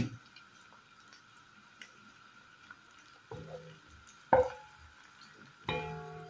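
Wooden spatula stirring chopped onion and garlic in oil in a granite-coated pot: a few separate knocks and scrapes against the pot, the sharpest a little over four seconds in.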